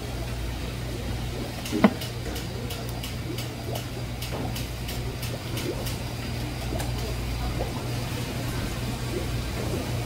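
Kitchen knife cutting raw fish on a plastic cutting board: scattered faint clicks and one sharp knock about two seconds in, over a steady low hum.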